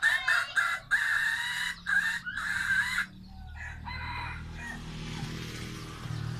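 White rooster crowing, a loud call broken into a few drawn-out segments that stops abruptly about three seconds in. After it, a quieter steady low hum.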